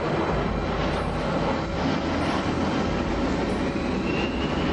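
Jet airliner's engines, a steady rumble with a faint rising whine near the end.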